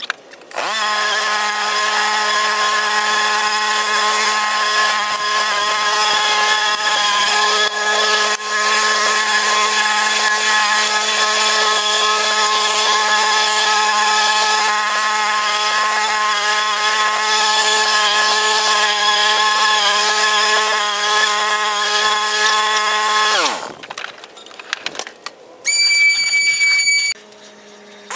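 Walk-behind petrol lawn mower running at a steady pitch while cutting grass. About 23 seconds in, its pitch drops away as the engine stops. Near the end comes a short, loud, high-pitched tone.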